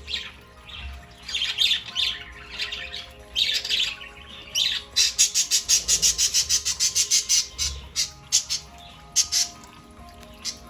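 Budgerigars chirping and squawking in short, high calls. A fast run of sharp chirps, about eight a second, comes about halfway through.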